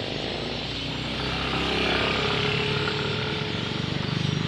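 A motor vehicle's engine running on the street, with a low pulsing hum that grows near the end.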